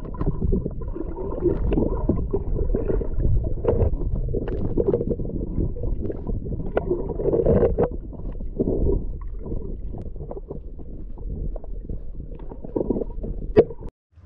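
Water noise picked up by an underwater camera: a muffled, low rumble of moving water with gurgling and many small crackles. A sharp click comes just before it cuts off near the end.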